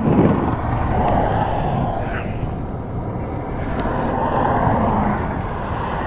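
Cars passing on a highway, their tyre and engine noise swelling and fading twice.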